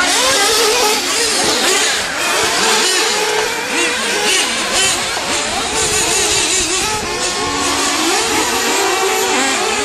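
Several 1/8-scale nitro RC off-road cars racing together. Their small glow engines scream and keep rising and falling in pitch as they accelerate and back off through the corners.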